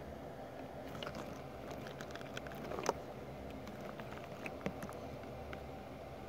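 Faint scattered small clicks and ticks over a low steady hum, with a slightly louder click about three seconds in.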